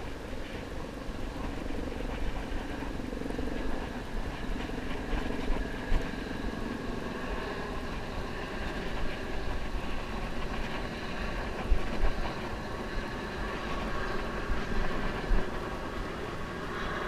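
Steady rumble of distant traffic and engines, with a few sharp knocks of a knife cutting clam bait against a wooden pier rail.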